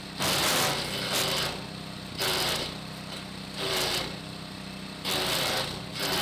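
Hecht 6208 branch shredder running with a steady hum, chewing branches in loud grinding bursts of about half a second, roughly once a second.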